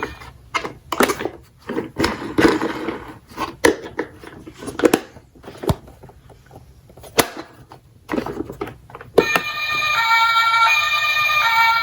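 Die-cast toy cars clicking and clattering in irregular knocks with short pauses, as they are handled and run on a slope. About nine seconds in, a two-tone electronic siren starts suddenly and keeps alternating between its notes.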